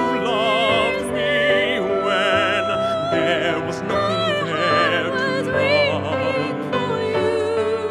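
Male tenor voice singing long, held notes with a wide vibrato and some runs between pitches, over steady instrumental accompaniment: a musical-theatre ballad being sung into a studio microphone.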